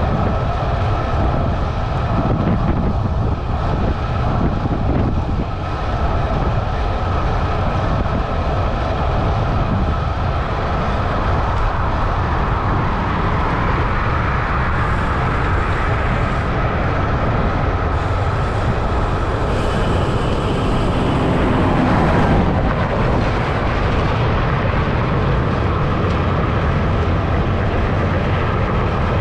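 Steady wind rush on the microphone of a handlebar-mounted camera on a road bike moving at about 49 km/h. A passing vehicle swells up about twenty seconds in, loudest just after.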